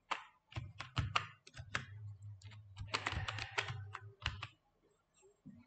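Typing on a computer keyboard: a quick run of about a dozen keystrokes that stops about four and a half seconds in.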